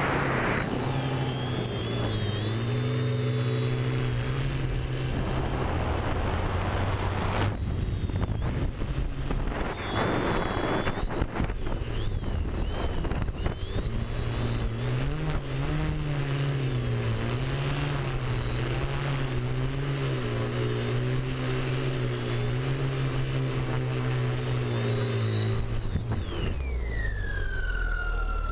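TBS Discovery Pro quadcopter's brushless motors and propellers buzzing in flight, heard from the onboard camera, the pitch wavering up and down with throttle changes over a steady rush of propeller wash. Near the end the low buzz stops and the whine falls sharply in pitch and levels off.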